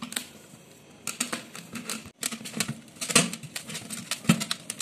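Hands kneading wheat flour dough in a stainless steel plate: a quick run of soft slaps, squishes and light taps against the metal, starting about a second in.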